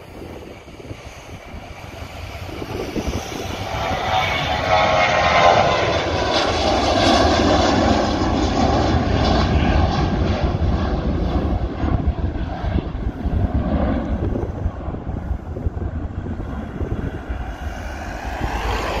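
Jet airliner passing low overhead: its engine noise with a whining tone builds over the first few seconds, peaks, then slowly fades as it moves away.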